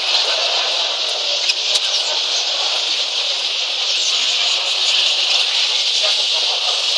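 Steady dense chatter of many caged canaries chirping and singing at once, a high-pitched din that fills the show hall, with a couple of faint clicks about two seconds in.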